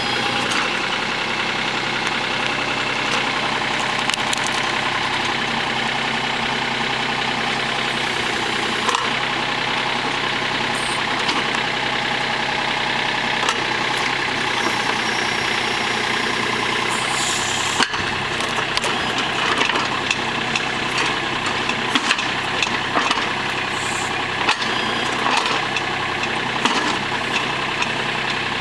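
Cub Cadet Yanmar EX3200 compact tractor's three-cylinder diesel engine running steadily while it works a backhoe, with scattered short knocks and clanks in the last third.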